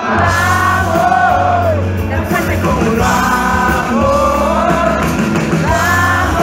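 Live band performing a song: sung lead vocal phrases over electric bass, keyboards and guitar, with a steady low bass line underneath, heard from within the audience.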